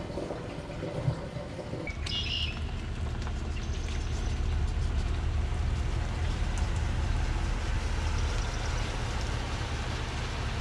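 Pickup truck engine running as the truck backs a boat trailer down a launch ramp: a steady low hum that swells slightly over the first few seconds and then holds. For the first two seconds, a gas-pump nozzle is filling a fuel can.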